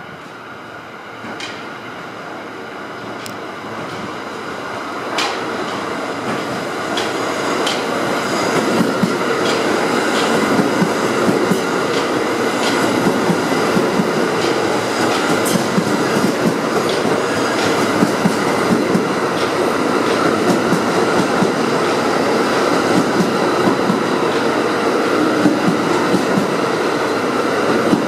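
R46 subway train running through the station without stopping. It grows louder over the first several seconds as it approaches, then runs steadily past at close range. Its wheels click over the rail joints in a steady clickety-clack.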